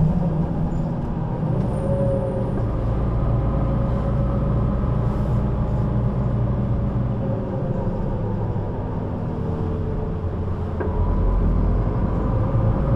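Solaris Urbino 12 III city bus with a ZF gearbox under way: diesel engine and drivetrain running with a whine that rises and falls in pitch. The deep engine rumble eases off for a few seconds past the middle and comes back louder near the end.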